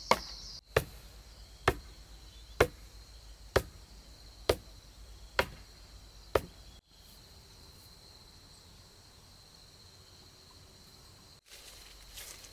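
A tool striking wood in a steady rhythm, about once a second, eight sharp blows in all, stopping a little over six seconds in. After that only a faint steady background until rustling movement near the end.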